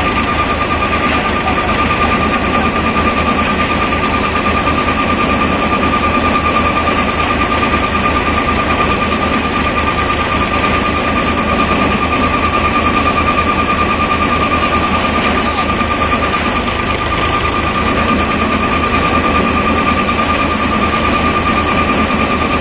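Shakti Farm paddy thresher running steadily while threshing paddy, driven by a Sonalika DI 42 RX tractor's 42 hp diesel engine: a steady high whine over a fast, even low beat.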